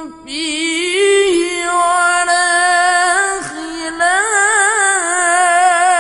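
Quran recitation in the melodic tilawah style: a male qari holds long, ornamented notes, his voice wavering quickly up and down in trills. He breaks off briefly just after the start and again a little past the middle before taking up the phrase again.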